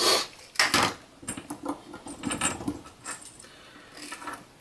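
Small clicks, clinks and rustles of hands handling cable and small metal parts on a wooden workbench, with a couple of sharper knocks in the first second.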